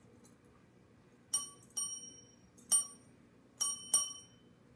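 Service bell struck five times by a dog pressing it with her paw, each press a bright ding that rings on briefly; the last two come in quick succession.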